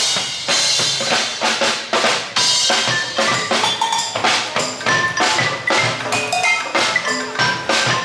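Drum music: a drum kit and percussion playing a busy, steady beat, with short pitched notes over it.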